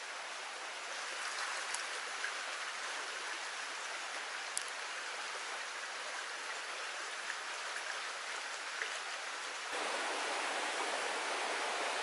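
Water of a small stream running steadily, a soft rushing hiss with a few faint ticks. About ten seconds in it jumps abruptly to a louder, fuller rush.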